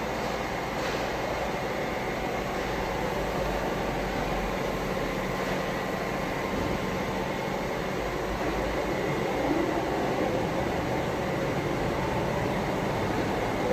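Steady machinery hum and whir with a faint high tone held throughout, without starts, stops or strokes.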